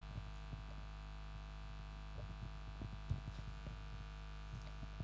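Steady electrical mains hum from a sound system, with scattered soft low thumps.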